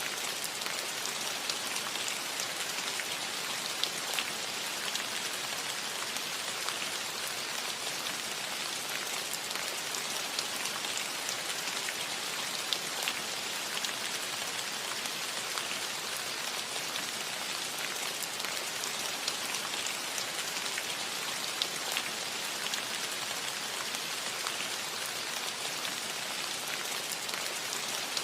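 Gentle rain falling steadily on a metal roof: an even hiss with scattered sharper drop ticks.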